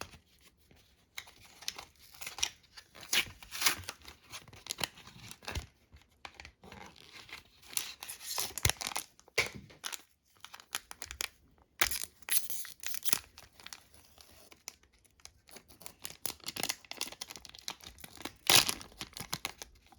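A trading card booster pack wrapper being torn open and crinkled by hand, in irregular rustling bursts with sharper crackles now and then.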